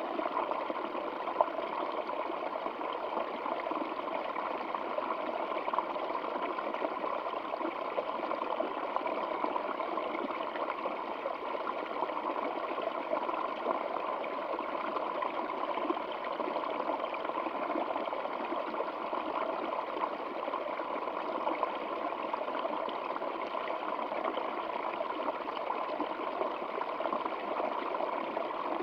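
Water flowing in a stream, a steady, unchanging rush.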